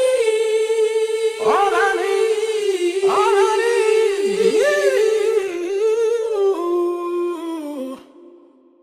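A single voice singing a wordless melody with slides in pitch, stopping about eight seconds in and fading out in reverb.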